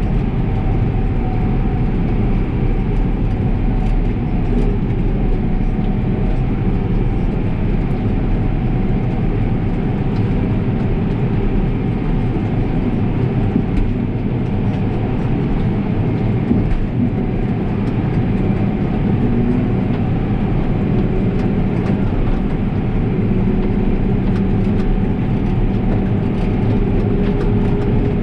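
Heavy farm machinery running steadily: a loud, even diesel drone with a faint steady whine above it.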